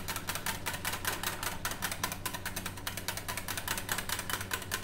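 Wire whisk beating thinned curd into frothy buttermilk in a glass bowl: a fast, even rattle of clicks as the wires strike the bowl and churn the liquid.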